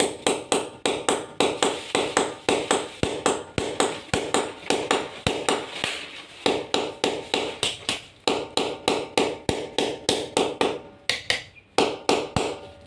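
Hammer blows in quick steady succession, about three to four a second, driving nails into a plastered masonry wall to fix tape-wrapped air-conditioner piping; the hammering breaks off briefly about six and eleven seconds in.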